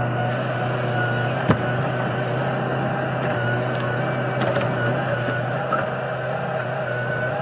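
Backhoe engine running steadily with a thin high whine over it, and a sharp knock about a second and a half in.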